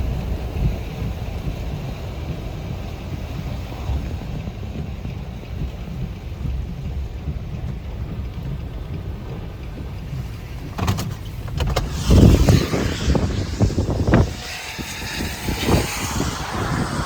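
Low, steady rumble of a vehicle driving. About eleven seconds in it gives way to strong, irregular gusts of wind, with rain, buffeting the microphone.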